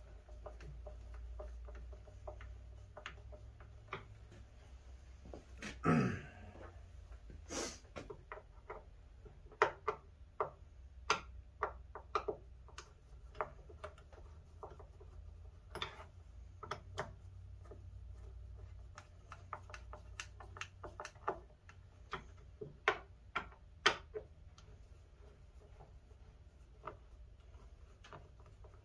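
Scattered small clicks and taps of a hand screwdriver and metal hardware as the screws of a drawer pull are tightened into a drawer front, over a low steady hum.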